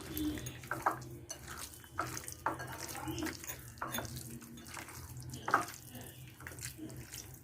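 Irregular wet squishing and soft clicks of raw chicken pieces being mixed into a thick chilli, curd and flour marinade in a bowl.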